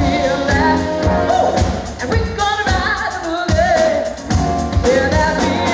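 Female singer performing with a live jazz band; a held, wavering vocal melody rides over a drum kit keeping a steady beat of about two hits a second.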